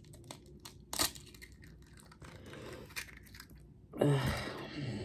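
Shell of a hard-boiled egg cracking and crackling as it is broken and peeled by hand: small scattered cracks, a sharp crack about a second in and another near three seconds, and a louder stretch of crunching shell near the end.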